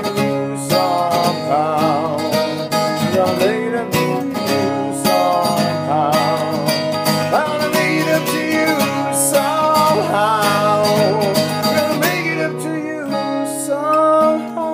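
Instrumental passage of a guitar-led song with no singing. Guitars play held chords under a melody line whose notes waver and bend in pitch.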